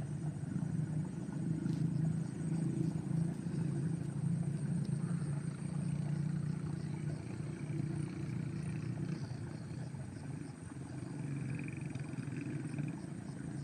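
A small engine running steadily: an even, low hum that does not change.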